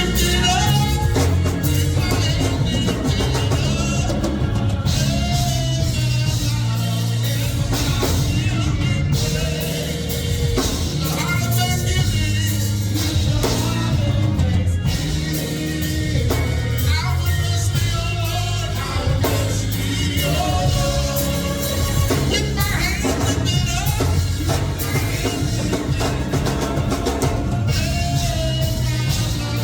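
Live gospel praise music: voices singing over a band with a drum kit and a steady bass line.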